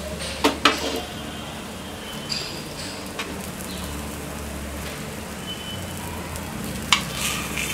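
Egg bites frying in oil in the cups of an appam pan, a steady sizzle. A few sharp clicks of a metal spoon against the pan come near the start and again near the end as the bites are turned over.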